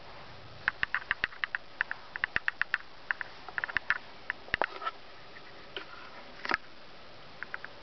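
Mother cat licking her newborn kittens: a quick, irregular run of small wet clicks and smacks, some in tight clusters, easing off after about five seconds.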